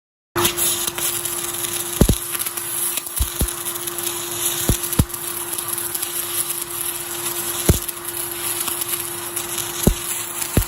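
Welding arc on galvanized steel sheet: a steady loud hiss with a constant hum, starting abruptly just after the beginning and broken by scattered sharp pops.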